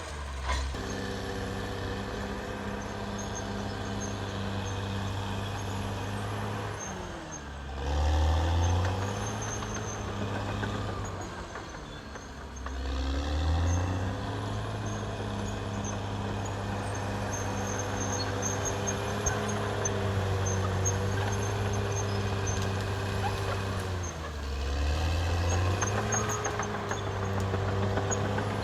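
Caterpillar D6R XL bulldozer's diesel engine running steadily at working speed. Its pitch sags and climbs back three times, at about 7, 12 and 24 seconds in, each time with a brief louder, deeper surge as it recovers.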